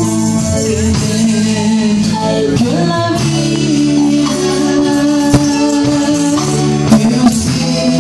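Live worship band playing: bass guitar, electric guitar and keyboard holding sustained chords, with a few sharp percussion hits near the end.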